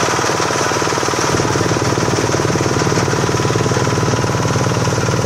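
Small rice combine harvester's engine running steadily with a fast, even pulse, its low rumble growing stronger about a second in.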